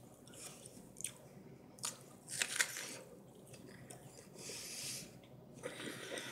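A person chewing and biting into raw pear flesh and core, with a few short, wet crunches; the loudest cluster comes about two and a half seconds in.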